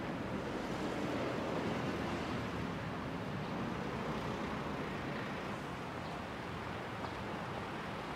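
Steady hum of city road traffic, a little louder about a second in.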